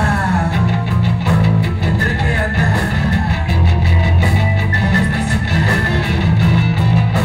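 Live rock band playing: electric guitars over a steady drum beat, with a melodic guitar line on top.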